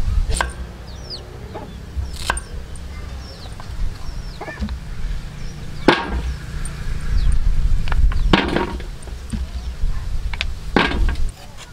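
Kitchen knife slicing through raw taro root and striking a wooden chopping block: about half a dozen sharp chops, irregularly spaced a second or more apart.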